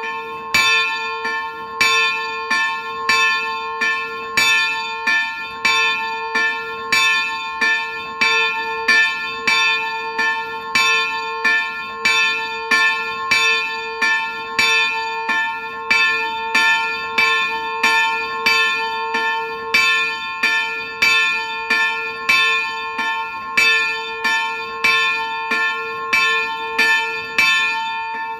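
Early-18th-century Nuspicher-cast bronze church bell swinging and ringing, its clapper striking at a steady pace of about one and a half strokes a second, with each stroke's hum ringing on into the next.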